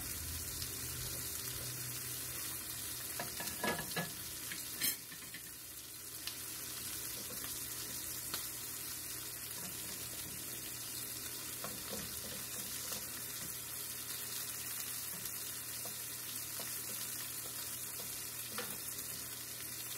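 Chuck steak and mushrooms sizzling steadily in hot beef tallow in a frying pan. There are a couple of sharp clacks about four and five seconds in, and a wooden spatula scrapes in the pan near the end.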